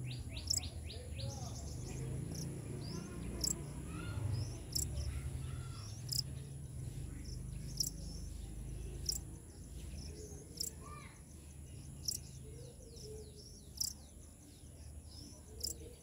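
Outdoor insect and bird chorus: a steady high insect drone with a short sharp chirp repeating every second or two, and scattered bird calls, over a low rumble.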